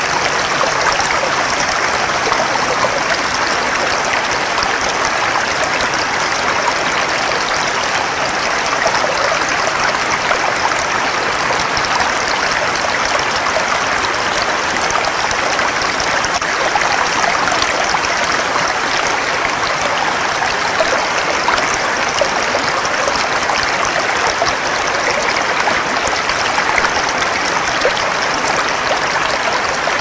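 Running river water, a steady, unbroken rush of flowing water.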